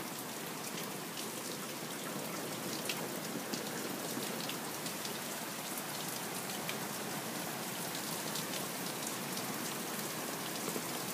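Heavy rain falling steadily, with scattered sharp ticks of individual drops striking close by.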